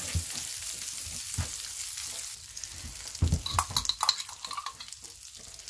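Chunks of meat sizzling in a skillet on a wood-burning stove. The hiss eases a little about two and a half seconds in, and a short run of sharp clicks and clinks comes about a second later.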